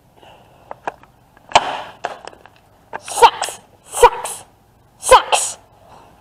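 A child making four short, breathy fighting noises about a second apart, with sharp knocks as stuffed toys are bashed about.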